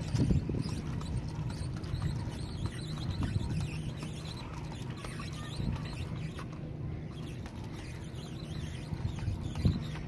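Wind rumbling steadily on the microphone, with scattered light clicks and a sharper knock near the end.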